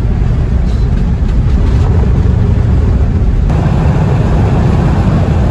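Steady road and engine noise inside a van's cab while driving at motorway speed: a low rumble with hiss over it. About three and a half seconds in it abruptly becomes brighter and hissier.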